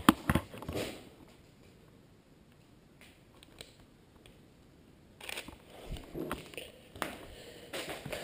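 Footsteps crunching over paper and debris on a littered floor. There are a few sharp crunches right at the start, the loudest of them, then a quiet stretch, then irregular crunching steps again from about five seconds in.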